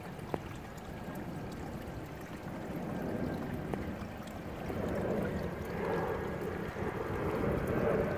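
Steady trickle and lap of water in a garden pond, with wind buffeting the microphone. It grows a little louder about five seconds in.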